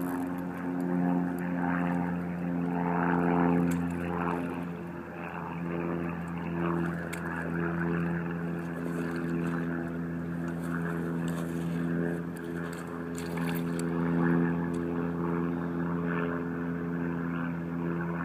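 A motor's steady drone, holding one pitch throughout, with a few faint clicks over it.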